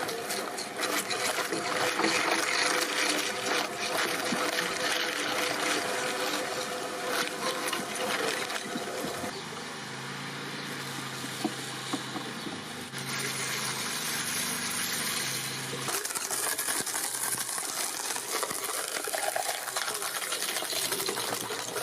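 Fruit-cutting machine running: a steady, noisy mechanical sound that changes abruptly about 9, 13 and 16 seconds in, with a low steady hum between roughly 9 and 16 seconds.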